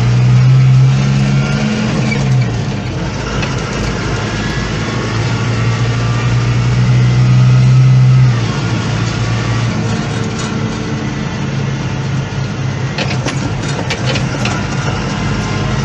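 Diesel engine of heavy farm machinery running at a maize silage harvest. It swells louder during the first two seconds and again from about five to eight seconds in, then eases off, with a few sharp knocks near the end.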